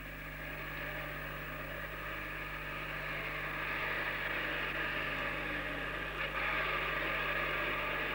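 A bus engine running steadily under a constant low electrical hum.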